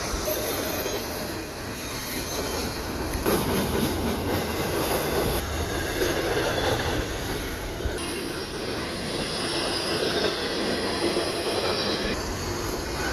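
Freight train cars rolling past on the track, with steady wheel-on-rail noise.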